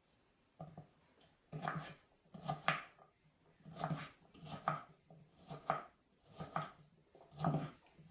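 Knife dicing carrots on a cutting board: a steady series of firm chops, about one a second, starting shortly after the start.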